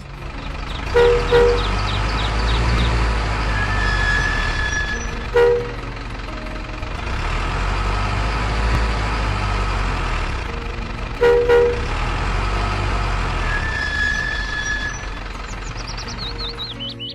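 Truck engine running with a steady low rumble, broken by short horn toots: two quick toots about a second in, one at about five seconds, and two more about eleven seconds in.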